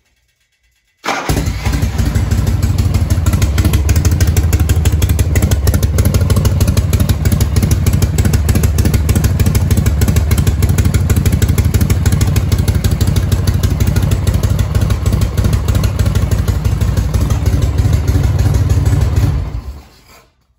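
Motorcycle engine running steadily and loudly, cutting in suddenly about a second in and fading away near the end.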